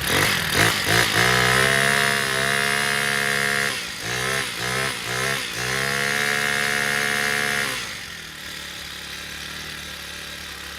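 Honda four-stroke string trimmer engine revved hard: three quick throttle blips, then held at high revs, a dip and a few more blips, held high again, then dropping back to idle about eight seconds in. It now runs freely after carbon buildup was sanded off the spark plug tip.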